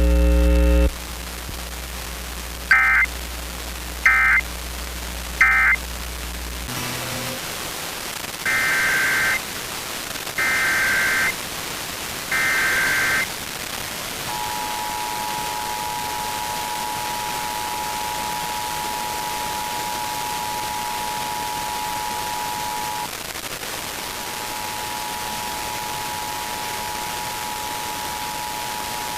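Emergency Alert System data and tones over a steady radio hiss: three short screeching bursts of the SAME end-of-message code, then three longer screeching bursts of a new alert's SAME header. After that the two-tone attention signal sounds steadily, drops out briefly near the end and resumes.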